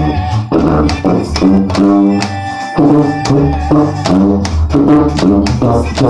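Sousaphone playing a bass line of separate notes, moving step by step, along with a recorded banda song whose singer and drums are heard over it.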